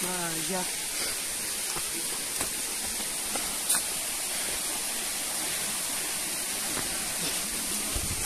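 Waterfall rushing in a steady hiss, with one sharp click about three and a half seconds in.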